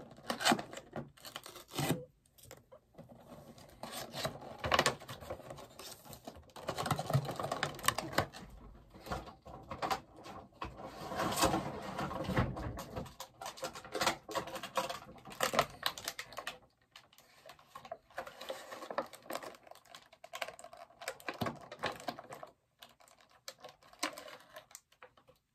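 A cardboard box being handled and picked at by hand: irregular clicks, taps and rustling of cardboard and packaging tape. It is busiest in the first half and sparser toward the end.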